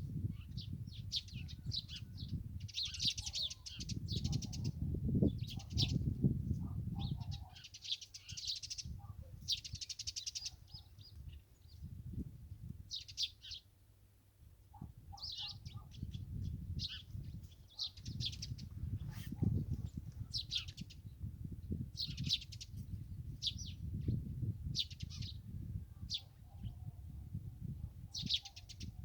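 Wild songbirds singing and chirping, short trilled phrases repeating every second or two, over a low rumble.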